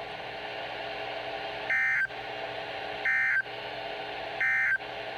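Three short digital data bursts from NOAA Weather Radio, each about a third of a second and about a second and a half apart: the SAME end-of-message code that closes an Emergency Alert System test, heard over steady radio hiss.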